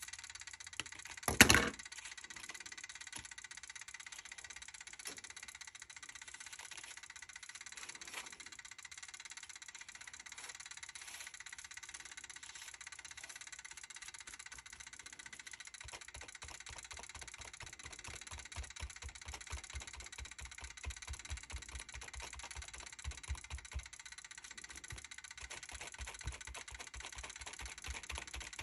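A brush dabbing paint through a paper stencil onto the page: from about halfway on, a run of quick, uneven soft taps over a faint steady hiss. A single sharp click comes about a second and a half in.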